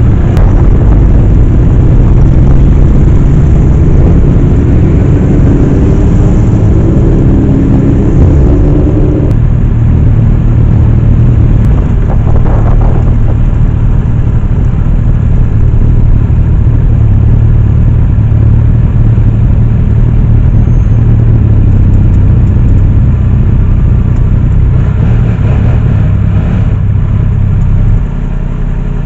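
Sport motorcycle engine running loud and close while riding, a steady low drone with the pitch rising a few times in the first ten seconds as it accelerates. Near the end it drops to a quieter, lower run as the bike slows to a stop.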